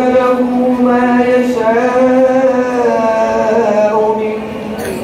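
A single voice reciting the Quran in a melodic, chanted style, drawing out long held notes.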